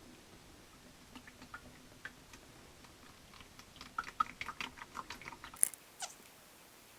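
Small clicks and crackles of plastic oil containers being handled, scattered at first and densest about four to six seconds in.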